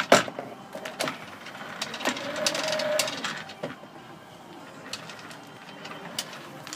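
Spring-driven auto-rewind hose reel winding a long hose back in, with the hose dragging in and irregular clicks and knocks from the reel and its sliding guide. There is a louder stretch of rubbing noise about two to three seconds in.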